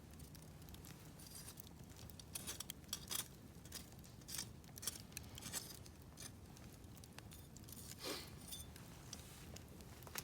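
Wood campfire crackling: irregular sharp snaps and pops over a low steady rush.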